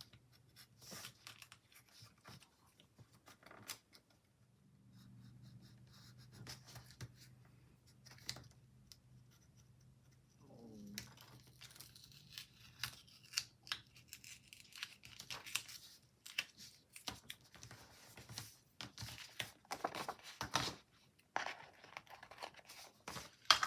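Small scissors snipping through paper and sticker sheets rustling as a sticker is trimmed by hand: light, irregular cuts and crinkles.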